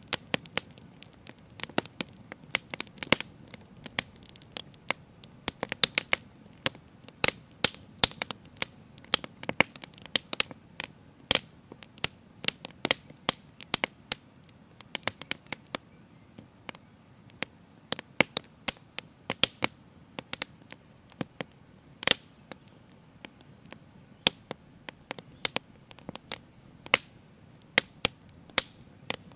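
Live fire crackling: sharp, irregular pops, often several a second, over a soft low rumble.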